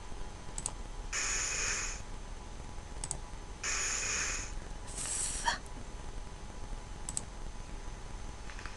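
Computer mouse clicks, a few scattered single clicks, with three short hissing sounds of under a second each in the first half.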